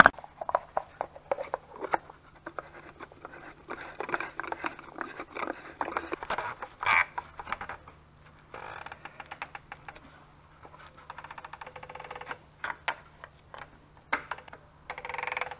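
Plastic oil filter housing cap on a BMW engine being screwed back down by hand: scratching, scraping and clicks of plastic and threads, with a stretch of fine rapid clicking past the middle. Near the end a filter wrench goes on the cap to tighten it.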